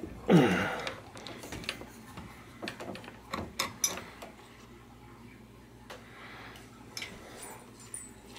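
Thread chaser being turned with an adjustable wrench in a bicycle crank arm, cleaning out damaged crank-puller threads. A brief squeal falls in pitch right at the start, then a few light metallic clicks and taps follow.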